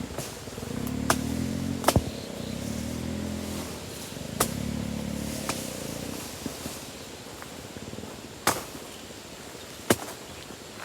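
A low, motor-like hum in three stretches over the first six seconds, with several sharp knocks or snaps scattered through.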